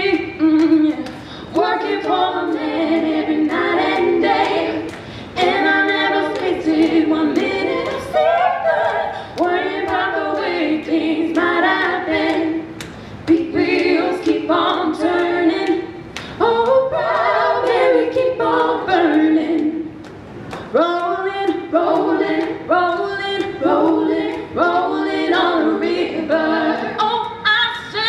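Three women singing a cappella together through microphones and PA speakers, in phrases with short breaks between them.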